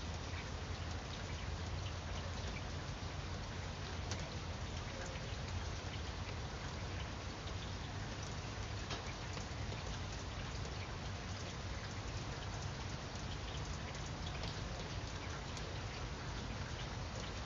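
Steady rain falling on grapevine leaves: an even hiss of rain with many individual drops ticking on the leaves.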